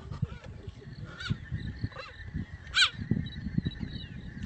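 Cheetah chirping: three short, high, bird-like chirps, the third the loudest, over a low rumbling noise.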